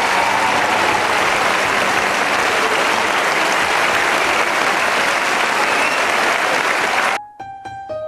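Audience applauding steadily. It cuts off suddenly about seven seconds in, and a quiet piece of music begins with single, separate notes.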